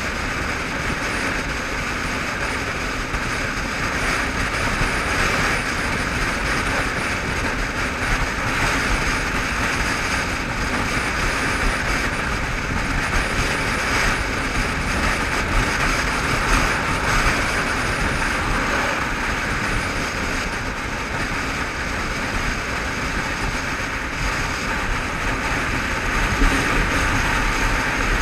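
Motorcycle cruising at steady dual-carriageway speed: a constant rush of wind over the microphone mixed with road and engine noise, with no change in pace.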